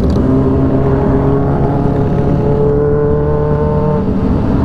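Kawasaki Ninja H2's supercharged inline-four running at a steady cruising throttle, with wind rushing past the microphone at freeway speed. The engine note rises slightly for a moment and then eases about four seconds in.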